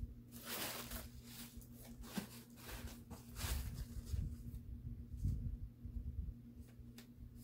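Packaging and paper rustling and crinkling in short, scattered bursts as items are handled, with dull low thumps from the handling, over a faint steady low hum.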